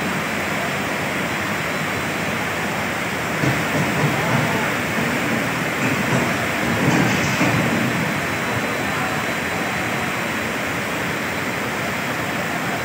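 Heavy rain and rushing floodwater, a steady, even noise.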